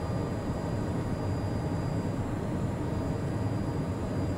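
Steady cabin noise of a Cessna Citation Mustang climbing at climb power just after takeoff: a continuous low rumble of its twin Pratt & Whitney PW615F turbofans and the airflow, with a faint thin high tone above it.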